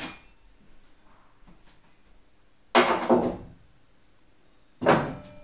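Heavy thuds of a door in a dark room: two close together about three seconds in, then another near the end, each with a short ringing tail.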